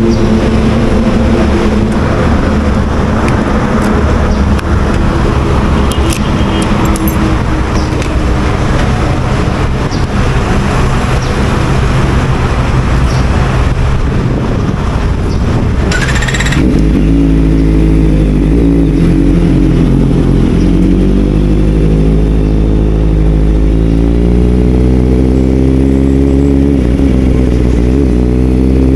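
Motorcycle engine running while riding, under a rushing noise for the first half. About halfway through, the engine's steady tone comes to the fore, and it climbs in pitch over the last few seconds as the bike speeds up.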